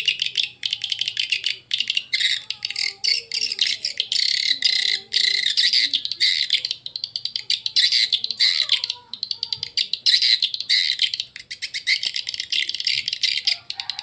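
Recorded edible-nest swiftlet calls, the 'SP Triple Queen' lure sound, played loud through horn tweeters: a dense, rapid, unbroken stream of high clicking chirps and twitters, used to draw young swiftlets into a bird house. A faint low hum runs under it.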